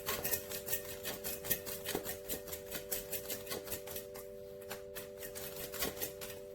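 A dog eating from its food bowl: quick, irregular clicks and crunches of tongue and teeth on kibble and bowl, over a steady hum.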